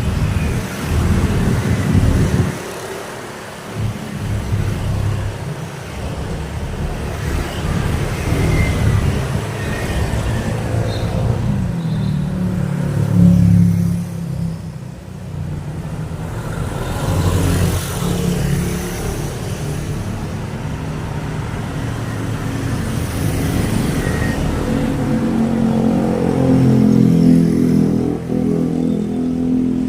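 Road traffic: cars and motorbikes going past one after another, their engines rising and falling in pitch, loudest about 13 seconds in and again near the end.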